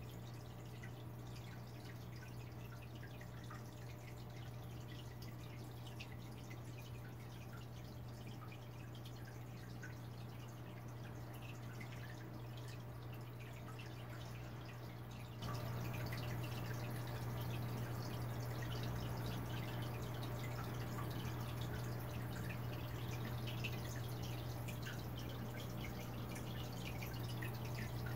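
Aquarium water dripping and trickling over a steady low hum from the tank's equipment, louder from about halfway through.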